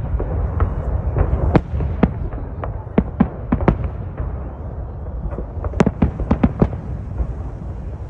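Aerial firework shells bursting in a salute: many sharp bangs at irregular intervals over a steady low rumble, with a dense run of loud bangs about six seconds in.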